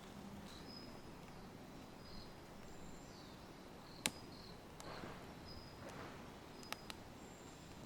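Quiet outdoor ambience with short, high-pitched chirps now and then over a faint steady hiss. A single sharp click comes about four seconds in, and fainter clicks follow near the end.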